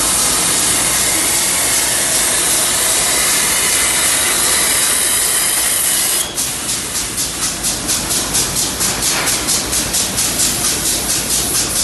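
Hypertherm XPR300 plasma cutter arc hissing loudly and steadily. About six seconds in, the hiss turns into a rapid, even pulsing of about five beats a second.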